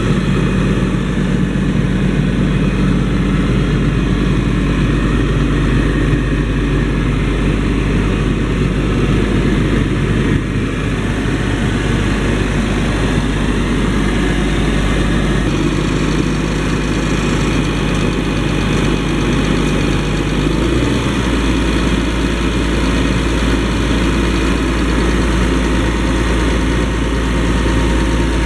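Challenger MT765C tracked tractor's 360-hp diesel engine running steadily, its note shifting twice in the second half.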